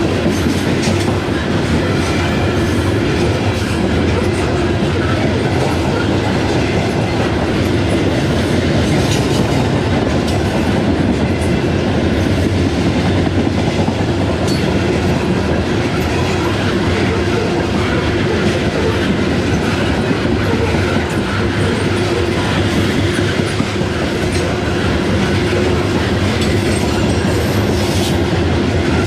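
Norfolk Southern freight train rolling steadily past, its cars' wheels clicking over the rail joints.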